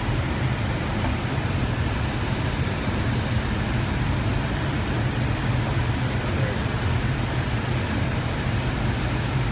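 Steady cockpit noise of an Airbus A319 on approach: engine and airflow noise with a strong low hum, unchanging in level.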